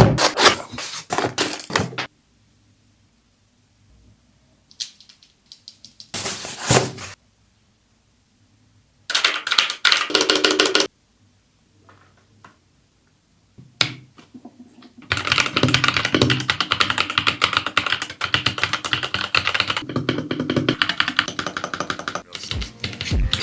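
Typing on an AJAZZ AK680 mechanical keyboard with red linear switches: scattered key clacks and knocks in short bursts with silent gaps, then fast continuous typing for the last eight seconds or so.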